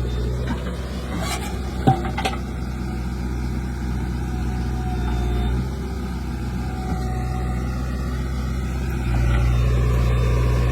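JCB 3DX backhoe loader's diesel engine running steadily, with a sharp clank about two seconds in. The engine gets a little quieter just before six seconds in and louder again about nine seconds in.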